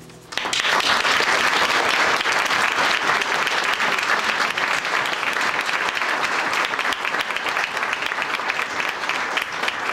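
A small audience applauding, breaking out suddenly right after the last note of the music fades and keeping up steadily.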